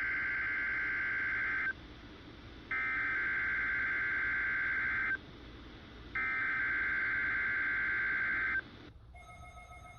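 NOAA Weather Radio SAME digital header tones sent three times, each burst a warbling data screech about two seconds long with about a second's pause between, opening an Emergency Alert System Required Weekly Test. A low radio hiss fills the pauses.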